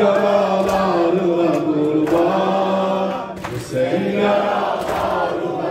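Voices chanting a Shia mourning lament (noha) in long held phrases, with short breaks between them.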